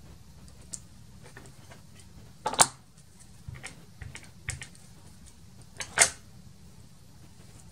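Hands handling a plastic stamp ink pad on a cutting mat: a few light taps and clicks, with two louder clicks about two and a half seconds in and again about six seconds in.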